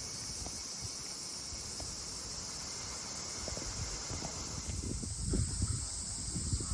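Steady high-pitched chirring of a summer insect chorus. Low rumbling grows louder near the end.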